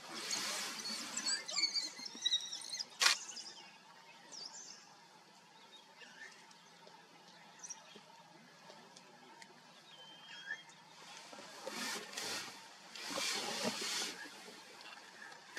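African wild dogs twittering: high-pitched chirps and squeaks over the first three seconds, with a sharp click about three seconds in. After a quieter stretch with a few faint chirps, short bursts of rustling noise come near the end.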